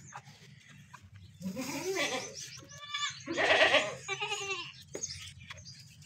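Makhi Cheeni goats bleating: a few short calls starting about a second and a half in, the loudest near the middle.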